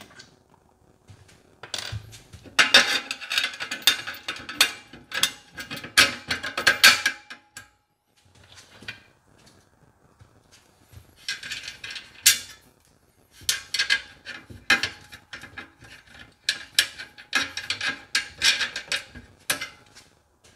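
Metal hardware and the aluminum/steel ramp frame clicking and clattering as they are handled during assembly, in two spells of several seconds each.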